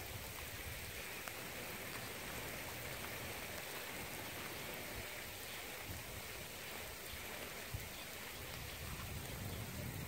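Steady rain falling, an even hiss with a few faint scattered ticks.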